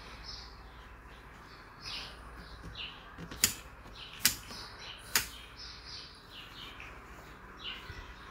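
Young kitten giving several short, high-pitched squeaky mews. Three sharp clicks come about a second apart in the middle, louder than the mews.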